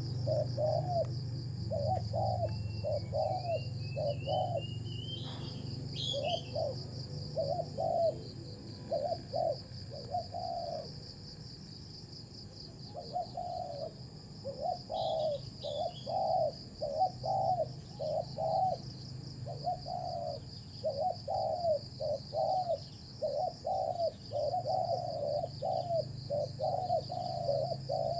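Spotted doves cooing in repeated phrases of several coos, with a short lull near the middle, over a steady high insect drone. A few brief higher bird chirps come in the first seconds.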